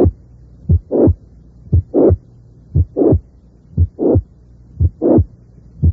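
Recorded heart sounds with a late systolic murmur of mitral regurgitation, high-pitched and blowing. About one beat a second: each beat is a short low thud followed by a louder, higher-pitched murmur.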